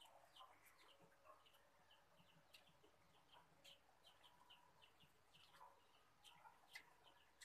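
Near silence, with faint, short high-pitched chirps repeating irregularly several times a second and a few soft clicks in the background.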